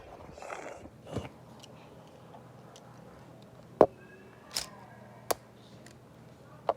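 Four sharp clicks and knocks, the loudest about four seconds in, with soft rustling near the start, over quiet room tone.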